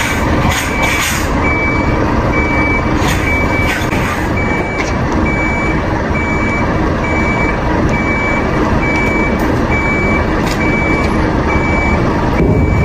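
A lorry's reversing alarm beeps steadily, one high tone about once a second, over the steady low running of the truck's diesel engine.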